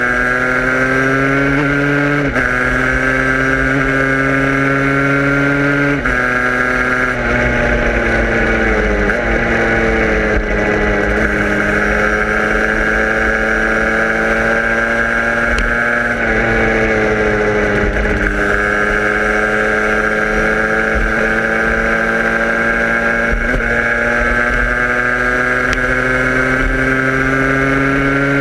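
A vehicle's engine running under way, its pitch drifting up and down with speed and stepping abruptly several times as gears change, over low road and wind rumble.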